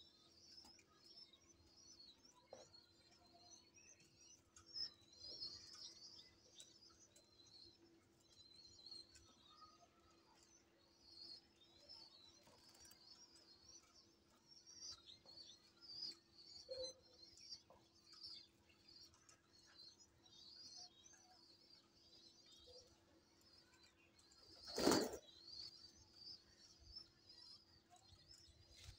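Faint, continuous high chirping of birds over a low steady hum. Near the end comes one short, loud burst of rushing noise.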